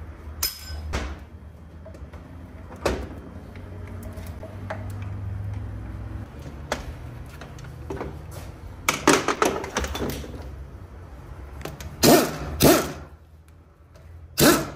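Irregular knocks and clunks, a few with a brief ringing tail, over a low steady hum, in a cluster about nine seconds in and again about twelve seconds in.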